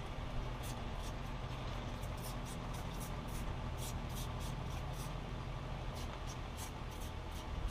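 Light, irregular clicking and small handling noises from work on the mower, over a steady low hum.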